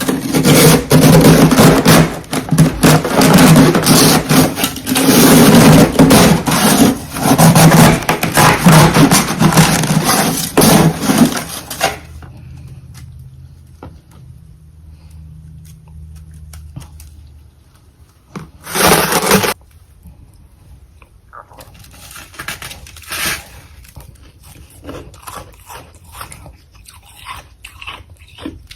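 Freezer frost crunching and scraping, loud and dense for roughly the first twelve seconds. Then a quieter stretch, one short loud burst a little before twenty seconds, and sparse, softer crunches near the end.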